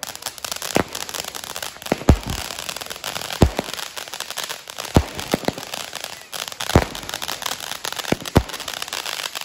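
Fireworks display: a continuous crackling, with about eight sharp bangs from bursting fireworks, roughly one every second.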